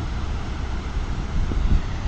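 Wind buffeting the microphone: a low rumble that rises and falls unevenly.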